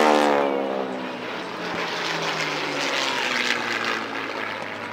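Propeller warplane with a radial engine passing low overhead. Its engine note drops in pitch and fades over the first second or so as it goes by, and a rougher steady engine drone carries on after.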